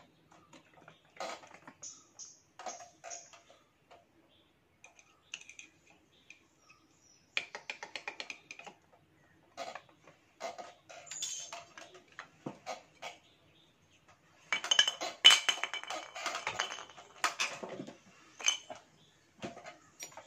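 Impeller and diffuser stages of a submersible borewell pump clicking and clattering against each other and the steel shaft as they are slid on and stacked. Irregular knocks throughout, loudest in a long stretch of rattling about three-quarters through.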